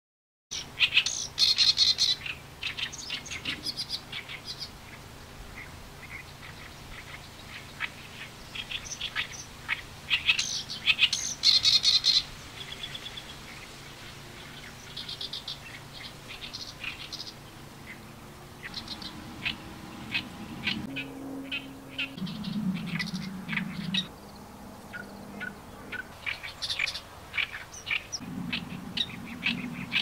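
Oriental reed warbler singing its harsh, gravelly song: bouts of rapid grating notes. The loudest bouts come in the first couple of seconds and again around ten to twelve seconds in, with scattered shorter phrases between.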